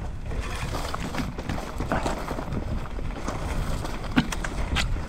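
Electric mountain bike ridden down a dirt trail: wind buffeting the microphone over a steady rumble of tyres on the ground, with sharp clicks and knocks from the bike over bumps, the loudest about four seconds in.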